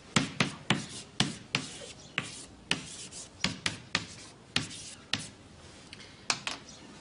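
Chalk writing on a blackboard: quick, irregular taps and short scrapes as characters are written, thinning out after about five seconds.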